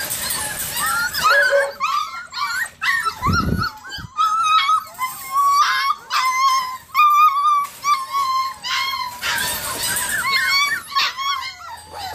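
A litter of German Shorthaired Pointer puppies whining and yipping together, a constant chorus of high, overlapping cries as they press against the kennel gate toward food set out just beyond it. A brief low thump comes about three seconds in.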